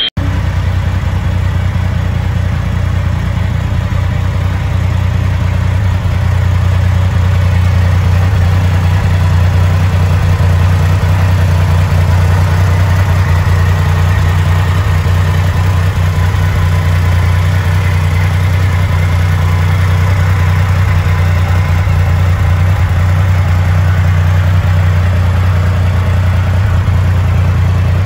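2021 Triumph Rocket 3 GT's 2458cc water-cooled inline three-cylinder engine idling steadily, a deep, even sound, a little louder from about six seconds in.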